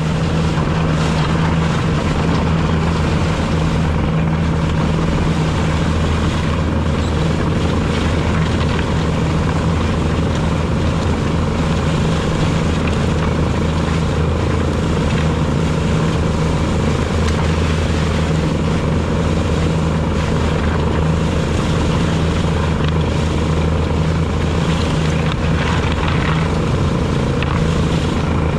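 Bobcat T770 compact track loader's diesel engine running steadily and loud, heard close up from a camera mounted on the machine.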